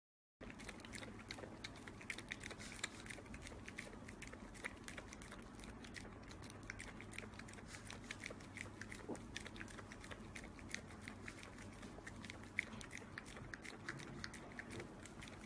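Small dog lapping a green smoothie from a glass: a faint, quick run of wet tongue clicks and licks, many a second, with no pause.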